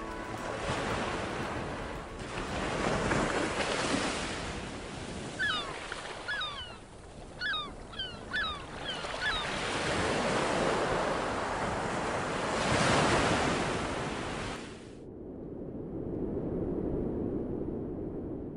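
Ocean surf breaking and washing up a beach in swells, with a string of about ten short, falling gull cries in the middle. About three-quarters of the way through, the surf gives way suddenly to a quieter, duller rush.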